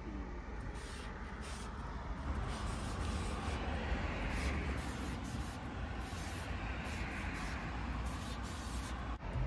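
Steady road traffic noise, a low rumble with a hiss over it, swelling a little a few seconds in.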